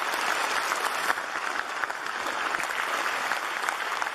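Crowd applauding: dense, steady clapping.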